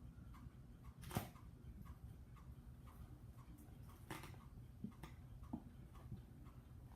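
Near-quiet room with soft, evenly spaced ticking about two a second, and two louder clicks, one about a second in and one about four seconds in.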